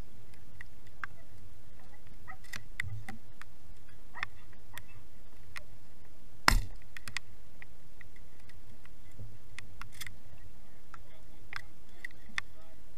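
Scattered faint clicks and rustles of gear being handled in a grass goose blind, with one sharp knock about six and a half seconds in.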